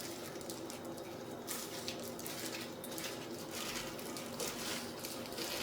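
Chopped vegetables and shrimp being mixed in a bowl: faint, irregular rustling and squishing.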